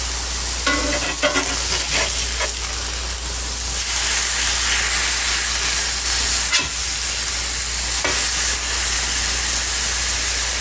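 Smashed beef patties and thin-sliced onions sizzling steadily on a hot cast iron griddle. A metal spatula scrapes and knocks against the iron a few times as the patties are flipped.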